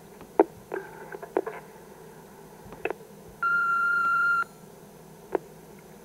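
Panasonic answering machine playing back its recorded messages: a few sharp clicks, then one steady beep about a second long, about three and a half seconds in.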